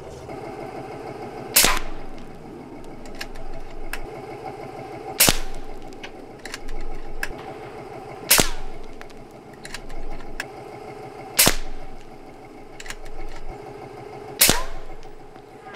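AGT Vulcan 3 .22 PCP air rifle firing five shots about three seconds apart, each a sharp crack, with fainter clicks between shots.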